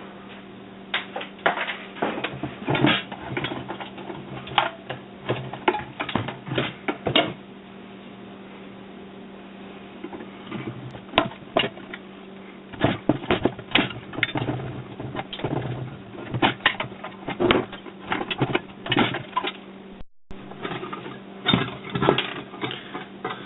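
Irregular clicking and clattering of small metal and plastic parts being handled and pulled loose as a rice cooker is taken apart, in bursts with a lull partway through, over a steady low hum.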